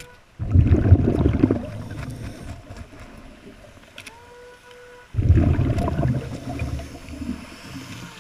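Scuba diver breathing through a regulator underwater: two exhalations, about five seconds apart, each a loud rush of bubbles that fades over a few seconds, with a short steady tone just before each.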